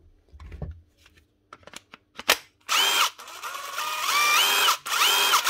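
A cordless DeWalt 18V XR brushless impact driver run free in three trigger pulls beginning nearly three seconds in, its motor whine climbing in steps as it speeds up. It runs normally, with no fault heard. Before that come a few light clicks and a thump as the battery is fitted.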